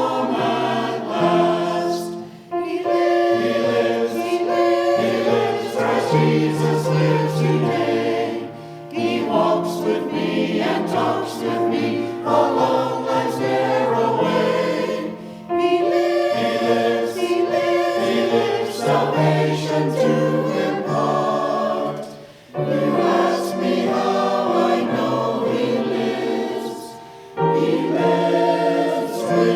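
Church choir singing a song of praise, phrase by phrase, with brief pauses between the lines.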